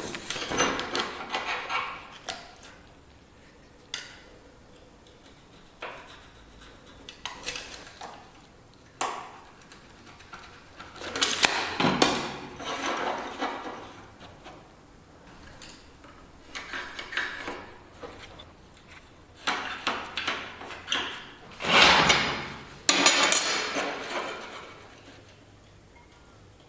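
Metal pieces and tools clanking and scraping as they are handled, in irregular bursts with quiet gaps between; the loudest clatters come about halfway through and again near the end.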